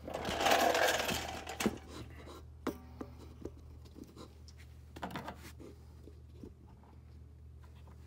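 Rustling handling noise as the camera is moved during the first second and a half, then a few scattered clicks and taps of hand work at the rear brake caliper, over a steady low hum.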